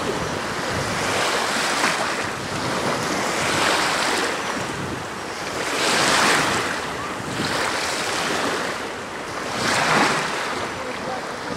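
Small sea waves washing, with wind buffeting the microphone; the wash swells and fades every few seconds.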